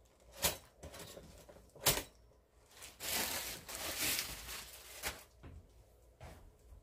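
Kitchen handling noises: two sharp clicks about a second and a half apart, then about two seconds of rustling.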